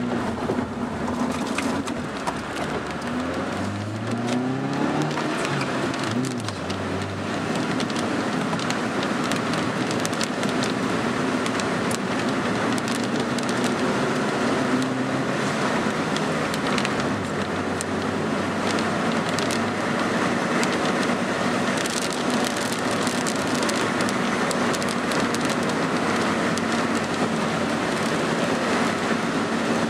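Car interior noise while driving in heavy rain: the engine and the tyres hissing on the wet road, with rain striking the windshield. A few seconds in, the engine rises in pitch as the car accelerates, then settles back.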